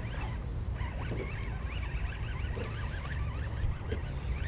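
Baitcasting reel being cranked to wind in a hooked fish, with a steady low wind rumble on the microphone.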